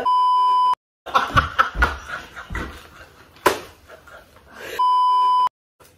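Two women laughing hard, with a sharp slap about three and a half seconds in. The laughter is bracketed by two short, steady electronic bleep tones edited in, one at the start and one near the end, each cut off into a moment of dead silence.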